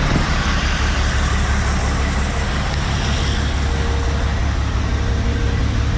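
Truck engine running steadily at low speed while reversing, under a loud steady rushing noise, with a faint steady whine coming in about halfway through.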